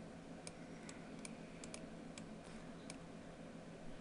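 Computer mouse button clicking, about eight short sharp clicks at irregular intervals, as letters are drawn stroke by stroke; a faint steady low hum underneath.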